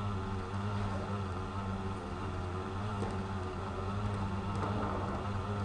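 Steady low mechanical hum with faint background noise.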